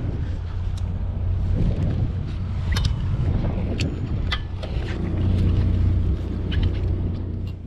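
Fishing boat's engine running with a steady low drone, under a few scattered sharp clicks.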